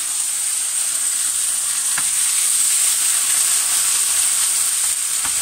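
Tomato sauce sizzling as it is squeezed into a hot frying pan of diced pork cheek frying in its own rendered pork fat, stirred with a wooden spoon. A steady sizzle with one small click about two seconds in.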